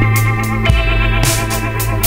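Background music: held keyboard chords over a steady bass note, with regular cymbal strokes.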